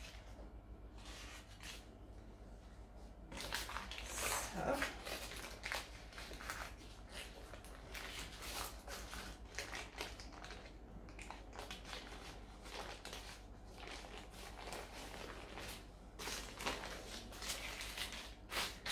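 Baking paper rustling and crinkling as a puff-pastry strudel is rolled up and lifted in it, in irregular bursts, with a brief rising whine about four seconds in.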